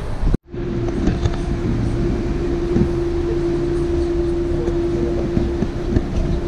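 Boat engine running steadily: a low rumble with a steady hum and light rattling. The sound cuts out briefly about half a second in.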